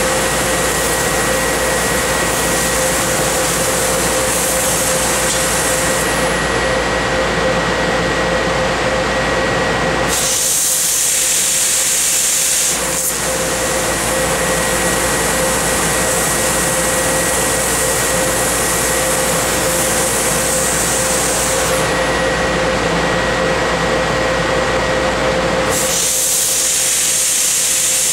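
Tanaka 6 kW laser cutting machine cutting 3/8-inch mild steel plate: a steady, loud rush of gas and machine noise with a steady hum and a higher steady tone. Twice, about ten seconds in and again near the end, the lower noise drops away for a couple of seconds, leaving a sharper high hiss.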